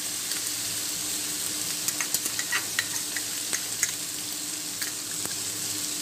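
Tomato and pineapple masala frying in oil in a non-stick wok: a steady sizzle with scattered pops and crackles, over a faint steady low hum.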